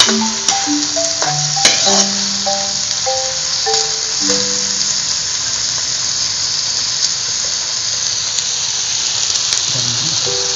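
Canned chicken breast sizzling in oil in a steel wok, stirred with a metal spatula that scrapes and clicks against the pan now and then. Background music, a tune of short notes, plays over the first half and comes back near the end.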